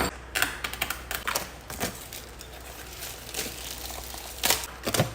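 Packaging being handled during unboxing: irregular sharp clicks and rustles, with the strongest clicks near the end.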